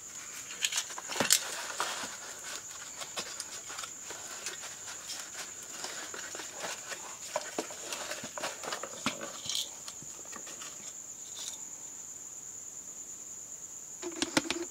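Cardboard box scraping and rustling, with irregular clicks and knocks, as a boxed compact fluorescent lamp is handled and slid out of its carton. A cluster of quick knocks comes near the end.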